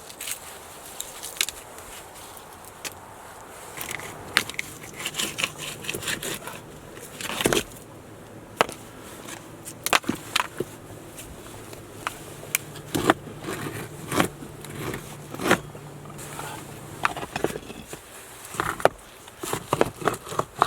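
Irregular knocks, scrapes and crunches of debris and boards being handled and moved about while a camp is cleared and rebuilt. A faint steady low hum runs under them through the middle.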